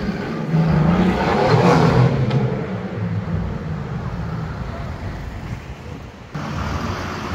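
Mercedes-AMG GT R's twin-turbo V8, tuned to Posaidon RS830+ spec, accelerating hard past on its exhaust. It rises to a loud peak about two seconds in, then fades as the car pulls away.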